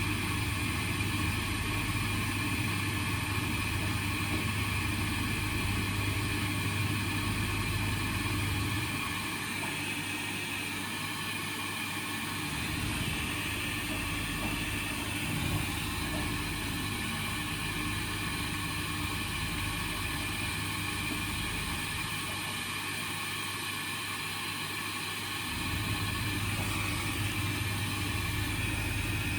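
Indesit washing machine in the cool-down stage of its baby cycle, taking in water to a high level. A steady low mains hum runs over the noise of the machine, stops about 9 seconds in and comes back near the end.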